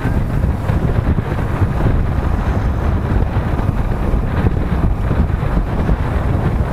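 Wind buffeting the microphone on a moving motorcycle, a steady low rumble, with the motorcycle's engine and road noise beneath it.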